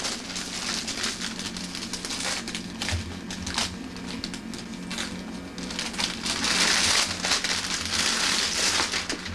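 Gift-wrapping paper crinkling and tearing as a present is unwrapped by hand, in irregular crackly bursts that are loudest about two-thirds of the way through.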